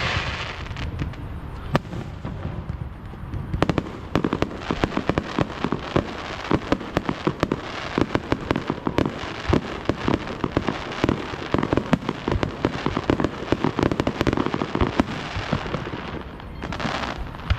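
Fireworks going off: a dense run of rapid sharp pops and bangs from about four seconds in until about sixteen seconds, with a hissing burst at the start and another near the end.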